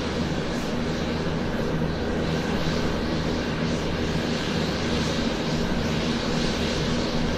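Airplane taxiing, its engine running steadily with a low, even hum under a broad rush of noise.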